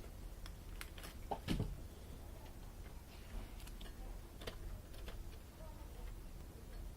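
Scattered light clicks and taps, with one louder knock about a second and a half in, over a low steady hum.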